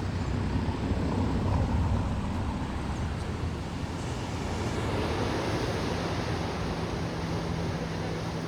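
Ocean surf washing against a rocky shore, with wind rumbling on the microphone. A faint, low, steady hum comes in about six seconds in.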